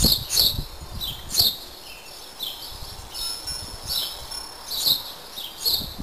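Garden birds chirping, repeated short high chirps about once a second, with a low rumble near the start.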